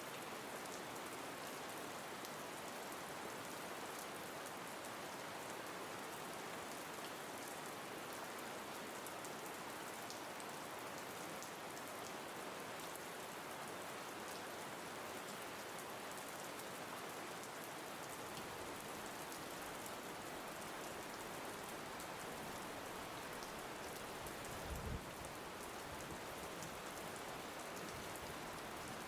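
Steady rain falling, an even hiss with fine patter of drops. A low rumble joins about two-thirds of the way through, and a brief low thump comes near the end.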